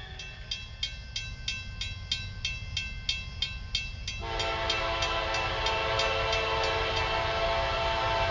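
Railroad grade-crossing bell ringing in even strikes, about four a second, as the crossing gates lower. About four seconds in, an approaching locomotive's air horn starts a long, loud blast, a chord of several notes held steady, over the bell.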